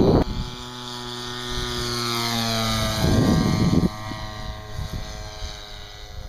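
Radio-controlled model aeroplane flying past, its motor and propeller giving a steady pitched drone that grows louder up to about three seconds in, then drops in pitch and fades as it moves away. A short rush of noise comes at the loudest point.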